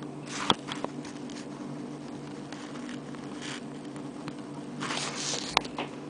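Fingers handling a small silver padlock clasp and gate bracelet: soft rustles with a few light metallic clicks, the sharpest about half a second in and another near the end, over a steady low hum.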